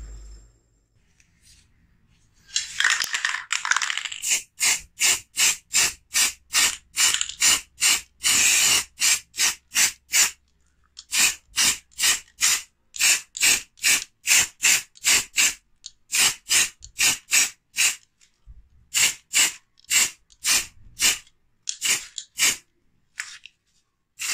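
Aerosol spray-paint can spraying black paint onto a small rifle part: one longer hiss, then many short, quick spurts at about three a second, with brief pauses between runs.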